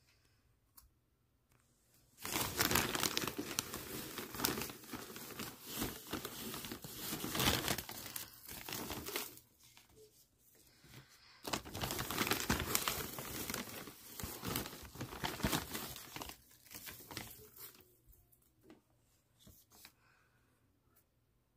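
Dry hay crackling and rustling as it is handled and stuffed into a cage's hay rack, in two long spells with a short pause between them and a few light clicks near the end.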